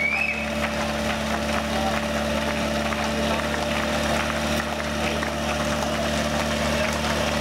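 Portable fire pump's engine idling steadily on its base before a fire-sport attack run.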